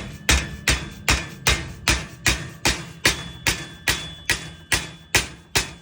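A mallet striking steadily, about two and a half blows a second, driving a metal double-star caster insert into the leg of a kamado grill.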